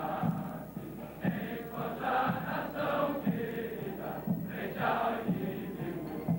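Massed voices singing a march-like song in unison over a steady low beat.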